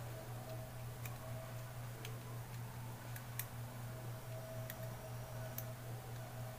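About half a dozen faint, irregular clicks of small metal parts being handled on a Zippo lighter, over a steady low hum.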